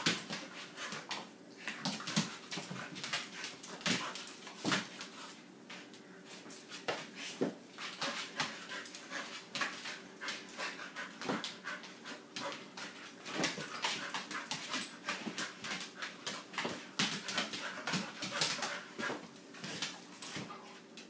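A dog panting and whimpering during rough play, with many short scuffing clicks throughout.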